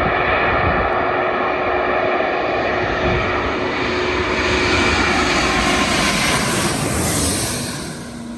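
Airbus A340-600 cargo jet flying low overhead on landing approach: a steady roar with a held high whine from its four jet engines. The sound swells briefly around seven seconds in, then fades as the aircraft passes.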